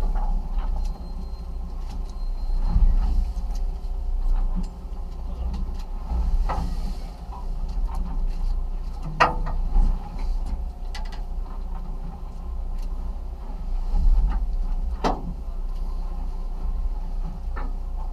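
Steady low rumble and hum of a fishing boat's engine, with a few sharp knocks now and then.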